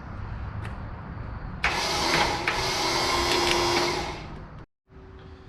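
A low rumble, then a loud motor whir that starts suddenly about a second and a half in, runs for about two and a half seconds and fades away.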